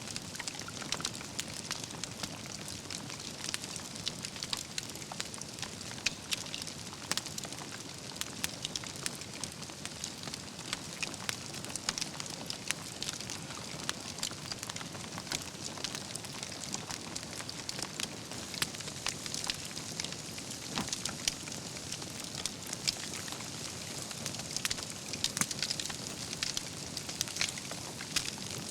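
Wood fire burning with a steady hiss and frequent irregular crackles and pops from the burning logs.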